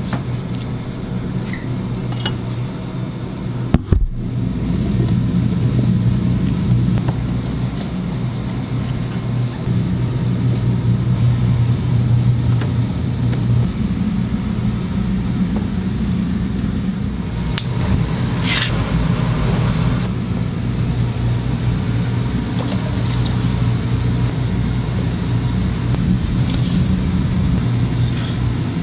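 Steady low rumble and hum of machinery in a restaurant kitchen, with a few brief clicks and knocks of utensils and containers.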